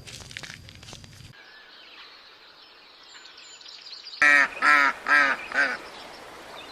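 A duck quacking four times in quick succession, loud, nasal calls.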